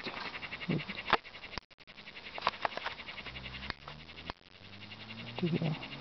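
Crickets chirping in a fast, even pulse, broken by a few sharp knocks and rustles from the camera being handled; a low hum runs under the second half.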